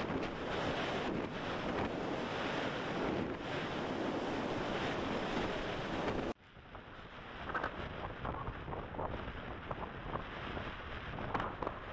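Wind noise from air rushing past an RC glider's onboard camera microphone, a steady rush; about six seconds in it cuts off abruptly to quieter, gusting wind buffeting the microphone in flurries.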